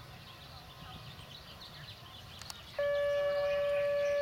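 One long horn blast: a single steady note starting abruptly about three seconds in, holding about a second and a half, then cutting off. It is loud over a quiet outdoor background.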